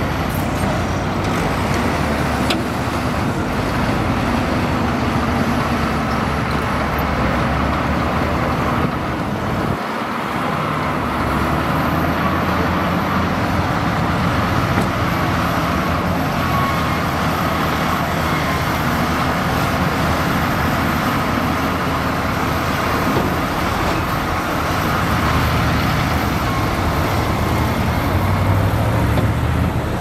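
Komatsu crawler bulldozer's diesel engine running steadily under load as it pushes a pile of dirt.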